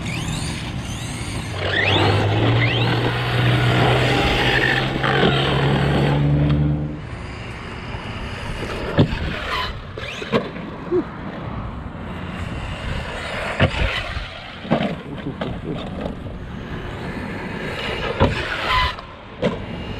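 Brushless electric motor of a 1/6-scale Redcat Shredder RC truck running on dirt, with a whine that rises and falls in pitch as it speeds up and slows, loudest for the first several seconds. After that it runs quieter, broken by several sharp knocks.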